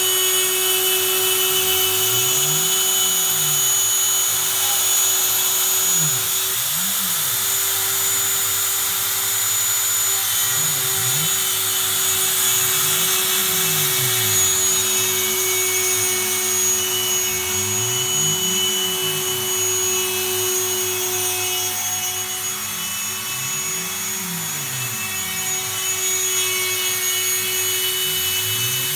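A Dremel rotary tool on a DIY CNC machine spins at a steady high pitch as its bit routs a circular pocket in a wooden board. Beneath it the CNC's stepper motors whine in arcs of pitch that rise and fall every few seconds as the axes speed up and slow down around the circle.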